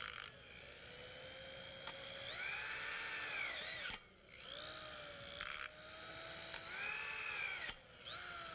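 Power drill driving self-drilling frame screws through a flat steel bracket into a steel truss member. The motor whine rises in pitch, holds and falls away in two long runs, stopping about four seconds in and again near the end.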